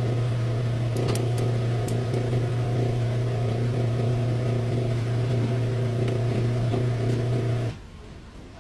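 Chevrolet Blazer engine running with a steady low hum, which stops abruptly near the end.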